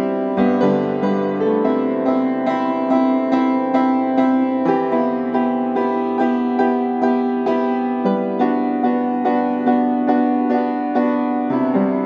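Piano music: notes struck in a steady pulse of about two a second over held chords that shift every few seconds.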